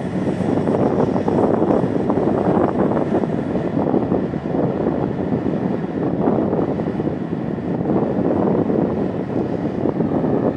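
Heavy diesel mining machinery running steadily: a Bucyrus RH120E face shovel working while it loads dump trucks, a rough, even engine drone.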